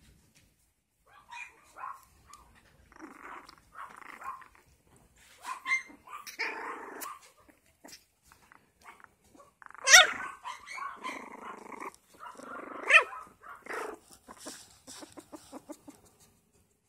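Parti Yorkie puppies play-growling and yipping as they mouth a hand. Two sharp high yips stand out, one about ten seconds in and another about three seconds later.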